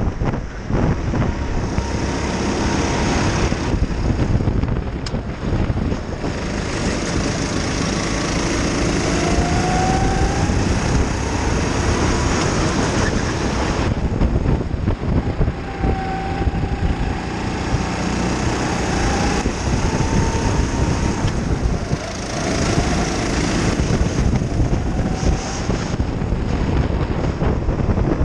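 Go-kart engine heard from onboard while racing, running hard with its note rising and falling as the kart accelerates and slows for corners, under a dense rush of wind and road noise.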